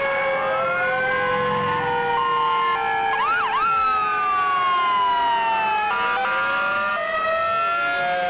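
Several emergency vehicle sirens sounding at once in a parade, their slow rising and falling wails overlapping, with a quick up-and-down whoop about three seconds in.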